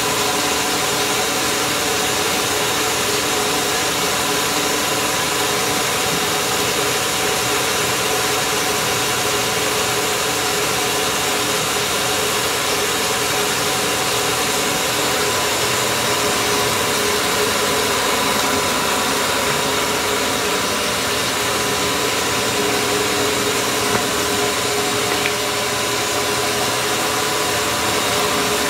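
Amada HA-250 horizontal bandsaw running steadily: an even mechanical hum and hiss with a few steady whining tones, unchanging throughout.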